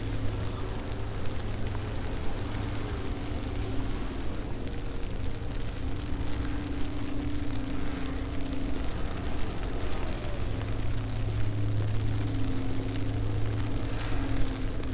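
Rainy city street ambience: a steady hiss of rain and wet traffic, with a low steady hum underneath.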